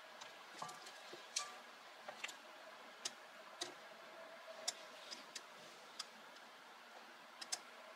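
Scattered light clicks and taps of kitchen utensils being handled at a mixing bowl, irregular and faint.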